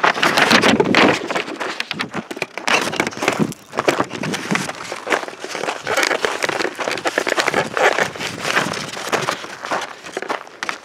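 Footsteps crunching on gravel: a dense, loud, irregular crackle of stones underfoot.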